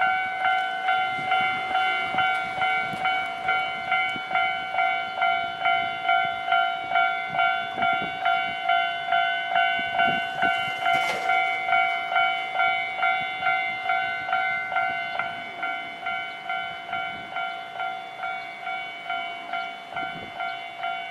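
Japanese railway level-crossing warning alarm sounding its repeated electronic clang, about two strokes a second, steady throughout and a little quieter in the last few seconds.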